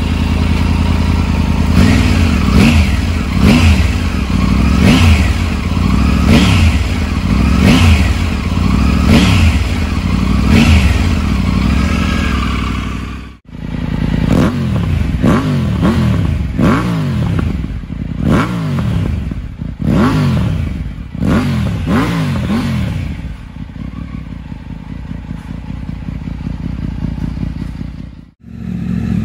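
Triumph Tiger 900's 888 cc inline three-cylinder engine revved repeatedly through an Akrapovič aftermarket silencer, each rev rising and falling about every second and a half. After a brief cut about 13 seconds in, the same engine is blipped quickly through an Arrow aftermarket silencer, then settles to a steady idle.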